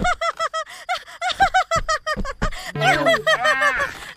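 A woman laughing in a high-pitched cartoon voice: a fast string of short 'ha-ha' syllables. A few steady musical notes sound under it about three seconds in.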